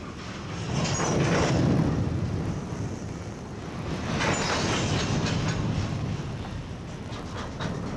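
Freight train cars rolling past on steel rails. The wheel-and-rail noise swells twice, then a quick run of clicks comes near the end as wheels cross rail joints.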